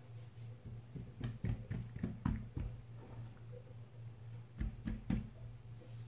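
Oiled hands pressing and stretching soft msemen dough flat on a tray: soft, sticky pats and taps, a cluster in the first half and two more near the end, over a low steady hum.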